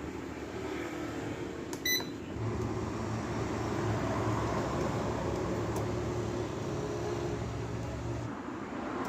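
LCD separator machine: a short electronic beep, then a steady motor hum that runs for about six seconds and cuts off near the end.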